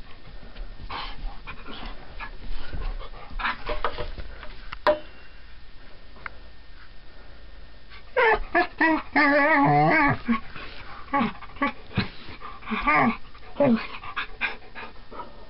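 Collie "talking" in play: a run of short whines and yips about halfway through, with one long, wavering, warbling call among them. Fainter rustling comes before.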